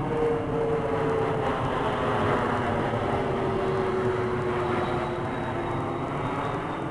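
Aircraft flying overhead: a steady engine drone whose tone slides slowly down in pitch.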